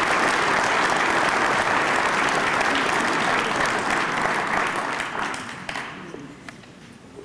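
Large audience applauding loudly, dying away about six seconds in and leaving a few scattered claps.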